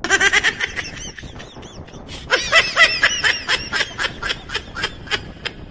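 High-pitched, rapid laughter in quick repeated 'ha-ha' pulses: a short run at the start, then a longer, louder run from about two seconds in.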